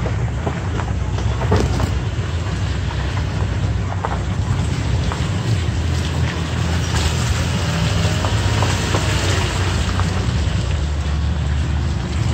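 Toyota Tacoma pickup crawling along a rocky dirt trail: a steady low engine note under the noise of tyres crunching over gravel and rock, with scattered small knocks.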